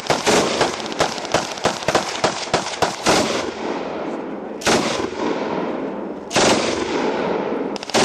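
Gunfire: a rapid string of shots, about five a second, for roughly three seconds, then three single loud reports spaced about a second and a half apart, each with a long echoing tail.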